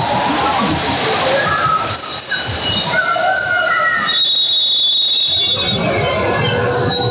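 Basketball sneakers squeaking on a gym floor during play, a run of short high squeaks and one longer held squeal about four seconds in, over players' shouts and crowd chatter.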